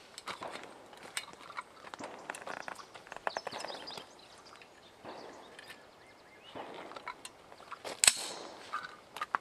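Small clicks and clinks of a long gun being handled and reloaded. One sharp, loud crack sounds about eight seconds in.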